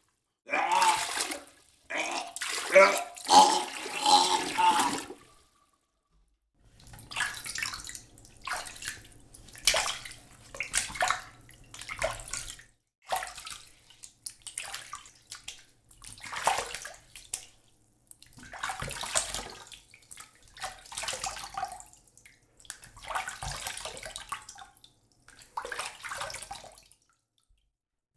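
A person splashing and sloshing water in a tub or basin, in many short separate splashes about a second apart, after a denser run of splashing in the first five seconds and a brief pause.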